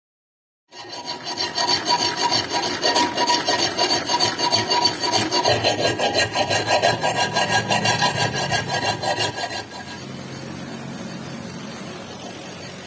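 Steel cleaver blade worked by hand in quick, even rasping strokes, with a faint metallic ring over them. The strokes begin just under a second in and stop about ten seconds in, giving way to a softer steady rubbing.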